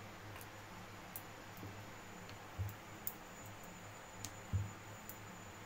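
Faint handling sounds at a marble rolling board: two soft thumps and scattered light clicks as rolled kachori dough rounds are picked up and shaped by hand, over a faint steady hum.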